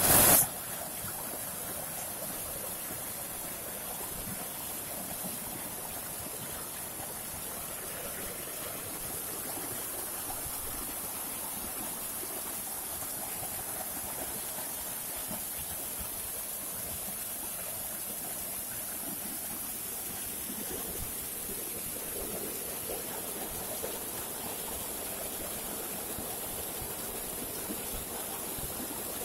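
Small mountain waterfall and stream splashing down over rocks: a steady, unbroken rush of water. A brief loud bump comes right at the start.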